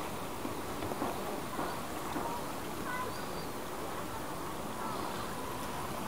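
Steady seashore noise of calm water lapping and wind, with a few faint brief tones about three seconds in.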